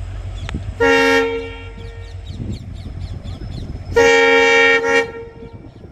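Indian Railways train horn sounding two blasts, a short one about a second in and a longer one lasting about a second near the end, over the low rumble of the moving train.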